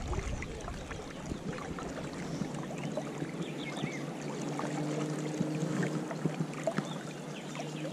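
River current swirling and lapping around a wading angler, with scattered small ticks and clicks. A faint steady low hum joins in the background from about three and a half seconds in.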